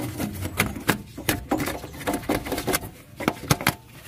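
Irregular scraping and knocking of a metal rod against the grimy, oil-caked front suspension of a van, several short sharp clicks a second as caked dirt and grease are worked loose.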